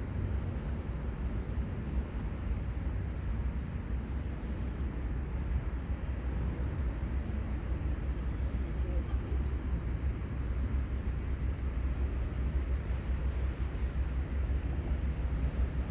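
Steady seaside ambience: a low rumble under a wash of noise, with faint short chirps repeating high up about once a second.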